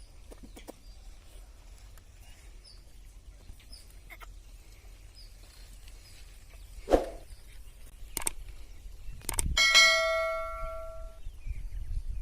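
A metal bell rings once about ten seconds in, a clear ringing tone that fades over about a second and a half. A few sharp knocks come before it, and there are faint high chirps.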